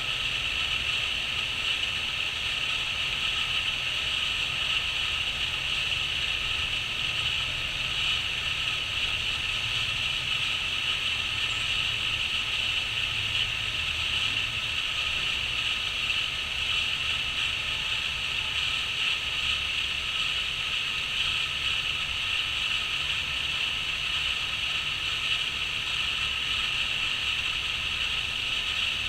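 Crickets chirping in a steady, unbroken chorus, over a low rumble.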